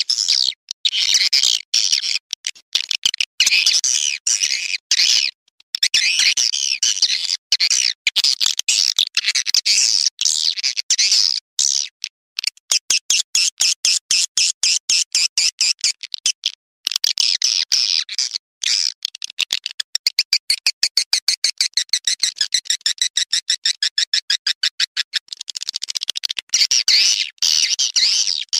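Swiftlet calling-sound recording, the kind played to lure swiftlets into a nesting house: dense, high chirping and twittering. From about twelve seconds in to near the end it changes to a long run of fast, regular clicks before the chirping returns.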